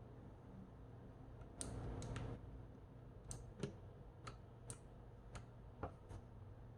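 Keys on a Keychron K1 SE low-profile mechanical keyboard being pressed one at a time, about ten sparse, irregular clicks, with a brief rustle about a second and a half in.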